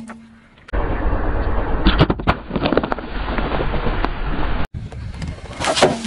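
Car tyre rolling slowly over objects on asphalt and crushing them: a low tyre rumble with a run of sharp cracks and pops. After a brief break, another crackling crush comes with a loud sharp crack near the end.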